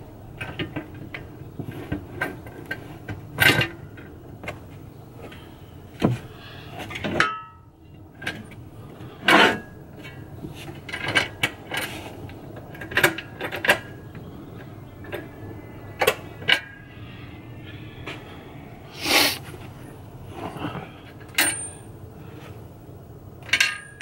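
Scattered knocks, clicks and light metallic clatter from a steel fridge slide and its mounting hardware being handled and positioned on wooden floor boards, with one short metallic ring about seven seconds in.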